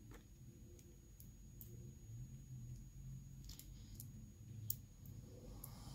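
Faint, scattered small metal clicks as a padlock's brass plug and a thin shim are handled and worked together.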